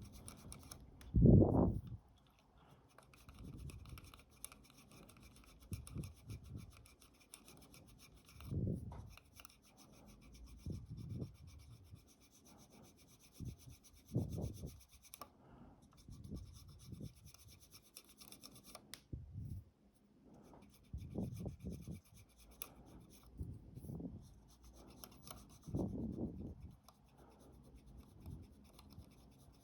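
Irregular rubbing and scraping strokes on a camera's shutter flex cable as sticky glue is cleaned off it with gasoline, a stroke every second or few seconds, the loudest about a second and a half in.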